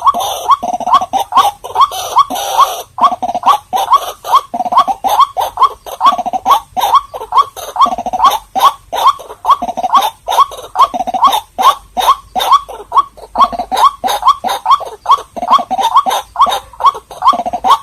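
White-breasted waterhen calling: a fast, steady run of short croaking notes, about three a second, each sweeping upward in pitch.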